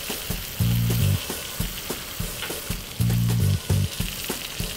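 Stir-fry of chicken, garlic and soy sauce, with beaten egg just added, sizzling steadily in a hot wok, with scattered light clicks of a utensil against the pan.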